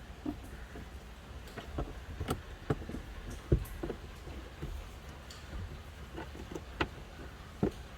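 Irregular plastic clicks and knocks of a car's interior trim panel being pried loose from its clips with a plastic pry tool, with the loudest knock about three and a half seconds in, over a low steady hum.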